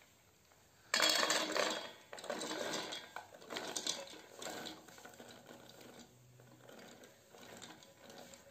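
Toasted peanuts poured from a frying pan into a stainless-steel food processor bowl, clattering against the metal. The clatter starts suddenly about a second in, is loudest at first, then thins out as the last nuts trickle in.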